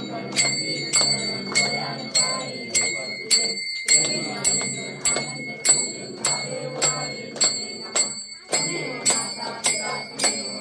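A hand bell (ghanti) rung steadily during an aarti, about two strokes a second, each stroke ringing on. Voices singing the aarti sound beneath it.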